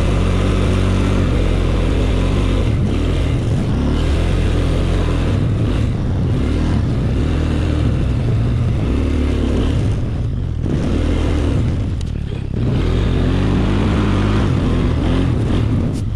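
Small engine running under load, its pitch rising and falling again and again, with two brief drops in level about ten and twelve seconds in.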